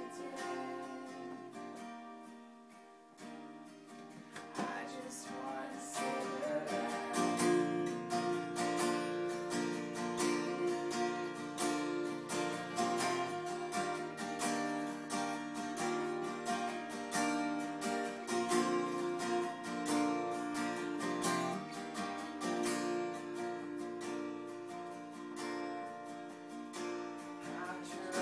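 Two acoustic guitars strummed together with singing. The playing thins out and quiets about two to four seconds in, then builds back up to a fuller, louder strum.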